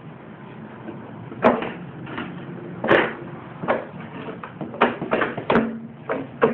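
Irregular knocks and clanks of hand tools against the lawn mower's engine and deck while its mounting nuts are worked loose, about seven in a few seconds, some with a brief ring.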